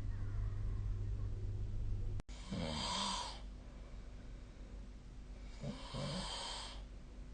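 A person snoring in their sleep: two snores about three seconds apart, each a rough, rasping sound with a low buzzing note. Before them a steady low hum runs and cuts off suddenly about two seconds in.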